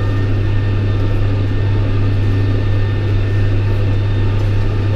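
John Deere 6110R tractor's diesel engine pulling a PTO-driven New Holland disc mower through a hayfield, heard from inside the cab as a steady, unchanging low drone. The engine is held at PTO speed in standard 540 mode while the mower cuts.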